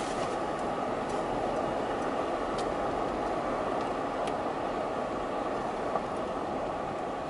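Steady road and engine noise heard from inside a moving car, with a few faint clicks.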